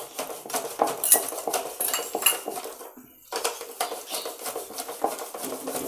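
Steel utensils clinking and scraping against a steel bowl and an iron kadai as wheat flour is tipped into ghee, a quick irregular run of metallic clinks with a brief pause about halfway.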